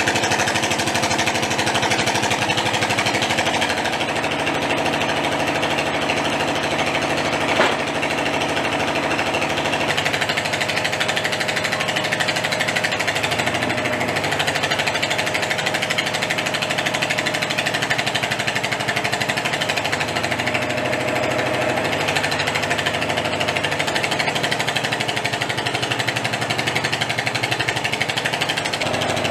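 Construction machinery running with a steady, rapid mechanical hammering, like a jackhammer, with engine hum underneath. There is one sharp knock about seven and a half seconds in.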